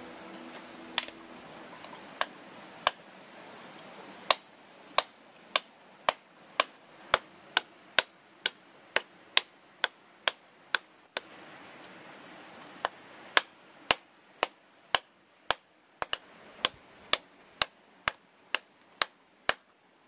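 Sharp knocks repeated about twice a second, stopping for about two seconds near the middle.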